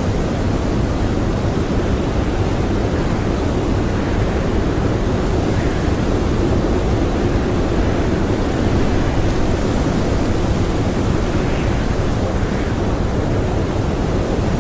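Blizzard wind blowing steadily: a continuous rushing noise, heaviest in the low end, with no gusts or breaks.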